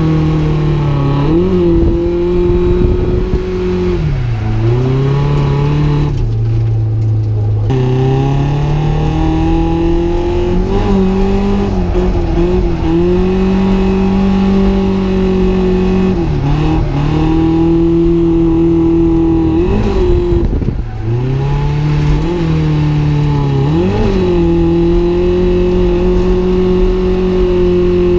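Nissan 240SX drift car's engine held at high revs while drifting. The revs drop and climb back up several times, with one longer dip to low revs a few seconds in.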